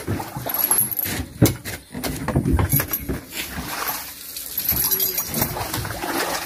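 Oil palm fruit bunches thudding and rustling as they are pitched up into a dump truck's bed and dragged with spiked poles: irregular knocks, the loudest about a second and a half in.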